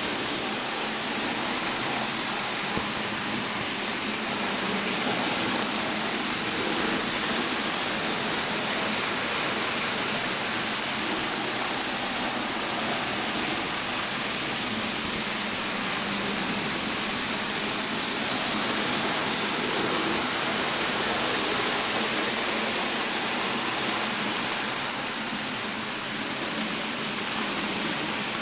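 Minitrix N-gauge model trains running on the layout: a steady whirring rattle of their small electric motors and metal wheels on the track, even and unbroken throughout.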